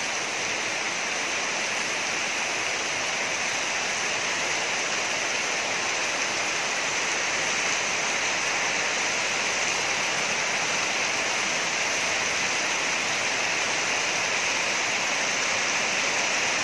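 Steady heavy rain falling, a constant even hiss.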